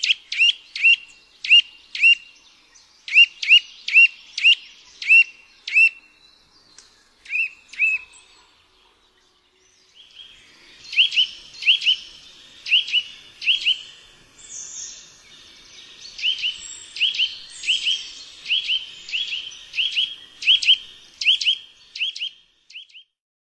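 Eurasian nuthatch calling: a series of short, sharp, upward-sweeping notes, two or three a second. The calls pause about eight seconds in, then resume at about ten seconds as a quicker, denser series over faint background noise.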